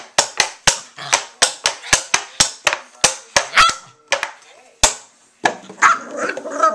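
A quick run of sharp hand claps or finger snaps, about four or five a second, that stops a little under four seconds in. After one more sharp clap, a Cavalier King Charles Spaniel starts a wavering, drawn-out howl near the end.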